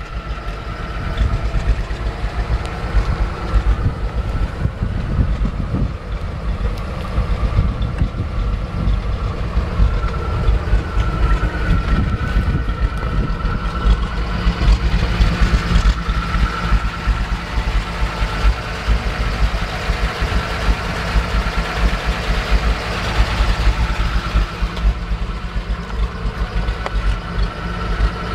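A 1955 Chevrolet Sedan Delivery's engine idling steadily.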